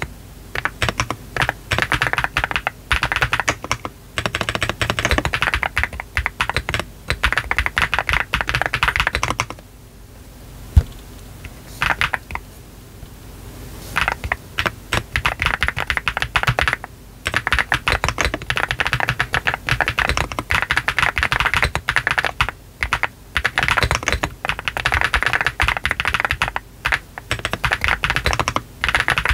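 Typing on a GDK DK1-TKL custom mechanical keyboard with a brass bottom, Y3 switches, a 1.2 mm PCB, full foam and soft sock gaskets, with PBT keycaps: a fast, steady stream of keystrokes. About ten seconds in the typing pauses for around four seconds, broken by one lone keystroke, then picks up again.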